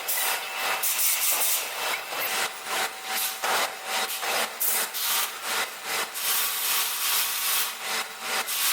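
Rhythmic rasping, scraping noise in repeated strokes, about two a second, over a faint steady hum.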